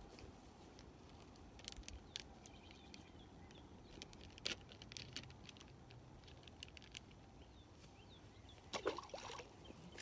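Faint scattered clicks and light rustling in short clusters, the loudest cluster near the end.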